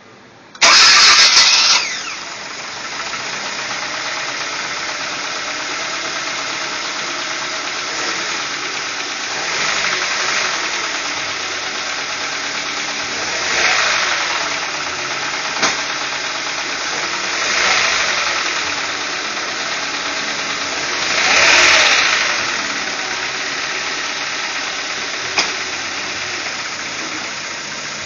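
Hyundai Elantra engine starting: a short, loud burst of cranking and catching about half a second in, then the engine idles steadily. The idle swells briefly several times, about every four seconds, and there are two sharp clicks.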